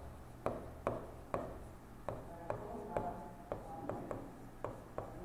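Pen tip tapping and clicking against the glass of an interactive display panel during handwriting, about two sharp ticks a second at an uneven pace.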